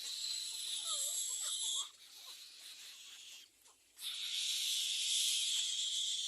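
Little egret nestlings giving raspy, hissing begging calls for food, in two long stretches with a pause between. A few thin squeaks come about a second in.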